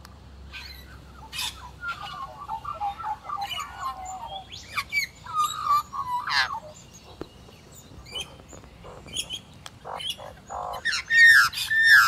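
Australian magpies calling at close range: runs of warbling phrases and squawks, loudest near the end, mixed with sharp taps of beaks pecking at a wooden tabletop.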